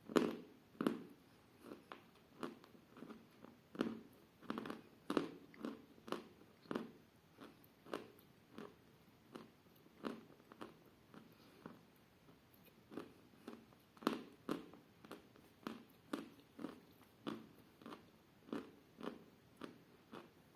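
A person biting into edible chalk and chewing it close to the microphone: a sharp crunch right at the start, then steady chewing crunches about one and a half a second.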